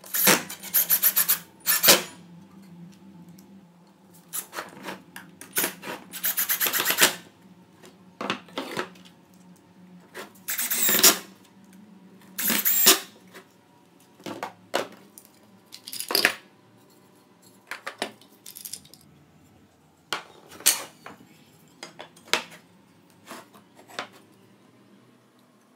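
Workshop handling noises: wooden frame pieces and metal corner clamps knocked, scraped and set down on the bench. Among the knocks are several rasping bursts of about a second, spread irregularly.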